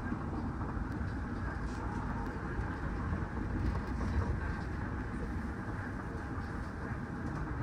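Guideway transit car running steadily through a tunnel, heard from inside the car: an even low rumble of the running gear with no change in pace.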